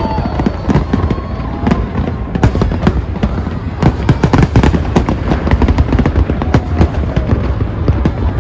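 Fireworks display: a dense barrage of shells bursting in quick succession, many sharp bangs and crackles overlapping with hardly a gap.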